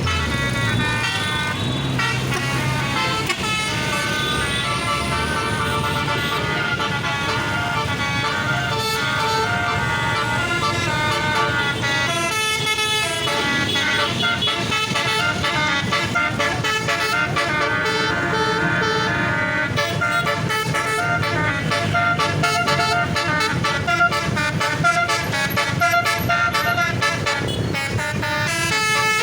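Tour bus's basuri multi-tone air horn playing a long telolet melody, its notes changing in steps, with a short break about twelve seconds in.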